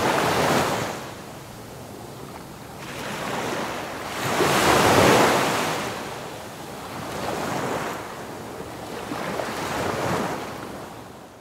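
Ocean surf: waves rolling in and washing out in slow swells every two to three seconds, the biggest about five seconds in, fading away near the end.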